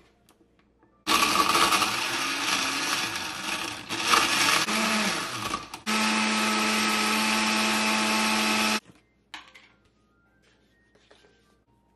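Countertop blender blending strawberries into a smoothie: it runs unevenly for about five seconds as it chops the fruit, then after a brief break runs again at a steady, even pitch for about three seconds and stops suddenly. A few light clicks and knocks follow.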